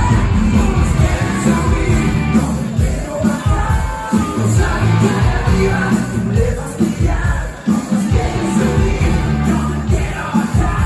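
Live pop-rock band playing: electric guitars, bass, keyboards and drums, with singing, heard loud through a phone held in the audience.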